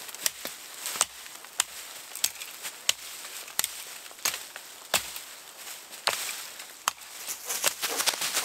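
Small hand axe chopping into a standing small tree, steady strokes about every two-thirds of a second, around a dozen sharp blows.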